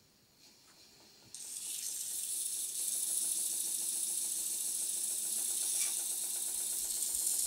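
Rear e-bike hub motor spinning under its own power with a faint steady hum. About a second in, 150-grit cloth-backed sandpaper is pressed against its spinning shell, adding a steady, loud hiss of sanding.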